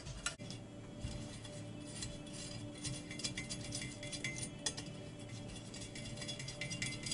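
Light metallic clinks and ticks from a bicycle wheel's spokes and rim being handled, over background music.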